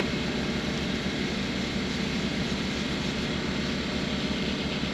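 A steady low mechanical drone that holds level throughout.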